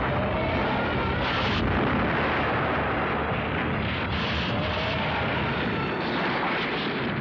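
Explosion sound effects of a building being blown apart: a dense, unbroken rumble and crash of blasts, with stronger blasts about a second in, about four seconds in, and near the end.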